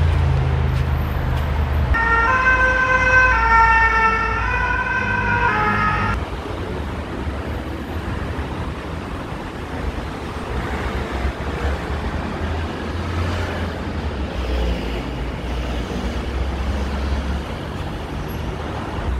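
A two-tone emergency-vehicle siren, stepping back and forth between two pitches for about four seconds and then stopping, over the low rumble of street traffic that carries on after it.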